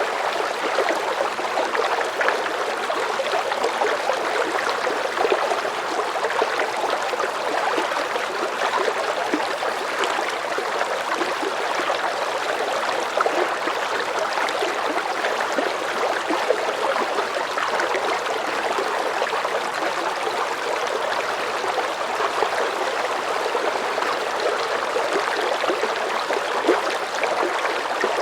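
River current of medium strength flowing steadily: a continuous wash of rushing, burbling water with small splashes throughout.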